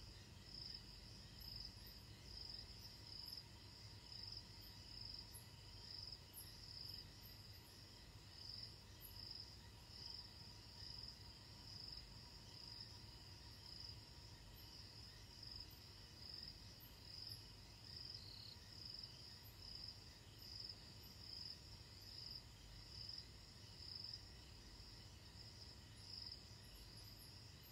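Crickets chirping faintly in a steady, high-pitched pulsing trill, swelling about once a second.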